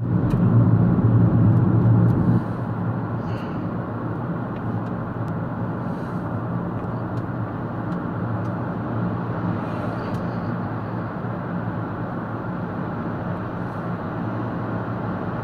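A car driving at road speed, heard from inside the cabin: steady tyre and engine noise with a low hum. It is louder for the first two seconds, then settles to an even level.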